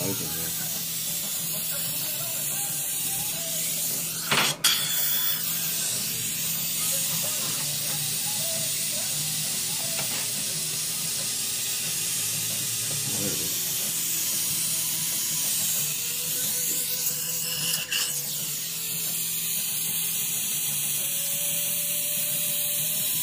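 Dental suction tube hissing steadily as it draws air and saliva from the mouth, with a low hum underneath. Two sharp clicks come about four and a half seconds in and again near eighteen seconds.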